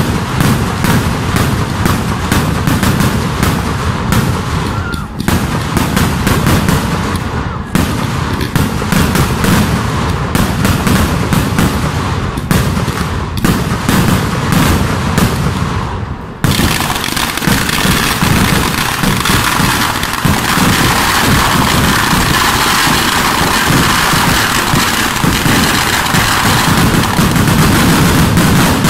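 Temple-festival fireworks (vedikettu) going off in a rapid, continuous barrage of bangs, like machine-gun fire. About two-thirds of the way in, the firing dips for a moment, then the bangs merge into an unbroken din that grows louder toward the end.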